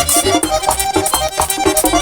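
Merengue típico band playing an instrumental passage: accordion lead over a fast, driving beat of low drum and bass hits and a steady high scraping rhythm.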